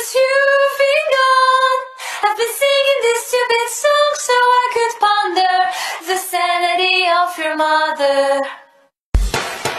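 A high female voice singing a short melody with no accompaniment, note by note, sinking lower in pitch toward the end before stopping.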